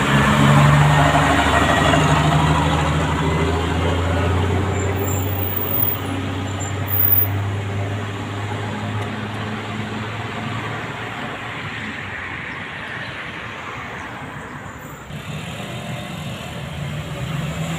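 Truck engine running as it passes, a low drone that fades over several seconds into general road traffic noise.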